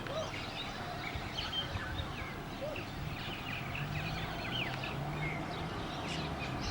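Small birds chirping, many short, scattered chirps and twitters over faint outdoor background noise.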